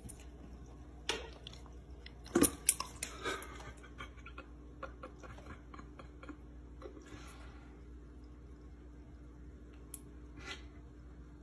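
A dog lapping and smacking its mouth at a bowl of sparkling water, making irregular wet clicks and licks. The loudest cluster comes about two and a half seconds in.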